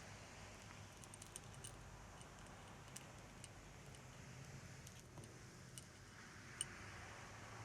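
Faint, scattered little clicks and crackles from ASMR trigger sounds, over a quiet hiss, with one sharper click about six and a half seconds in.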